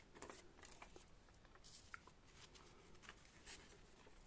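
Near silence with faint, scattered rustles and light taps of paper banknotes being handled.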